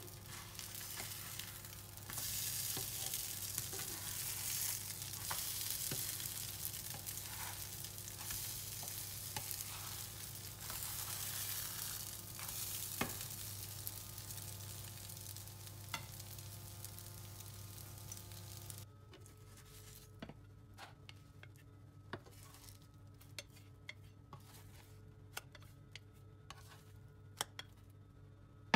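Grated courgette and carrot egg galettes sizzling in a nonstick frying pan, with light clicks and scrapes of a plastic spatula as they are turned. The sizzle stops abruptly about two-thirds of the way through, leaving scattered clicks over a low steady hum.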